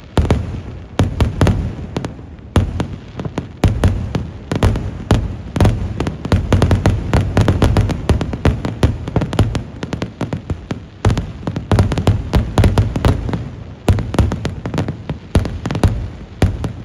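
Kerala vedikettu fireworks: aerial shells bursting overhead in a dense barrage, a rapid unbroken run of loud bangs and crackles, many per second, with heavy booms underneath.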